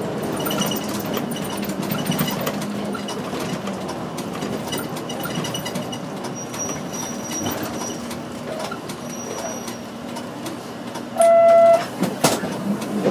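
Inside a city bus: engine and road noise with the cabin rattling as the bus slows and draws up at the kerb. Near the end a single loud electronic beep sounds for about half a second, followed moments later by a sharp clack.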